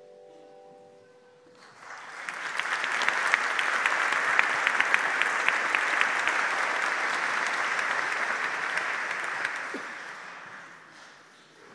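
Last notes of a hand bell choir ringing out and fading, then audience applause starting about two seconds in and dying away near the end.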